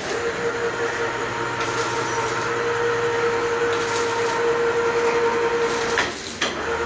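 Electric wire-rope hoist motor running under load, winding the cable that drives the motorcycle lift platform through its pulley block. It gives a steady hum with a whine, stops about six seconds in, then runs again briefly near the end.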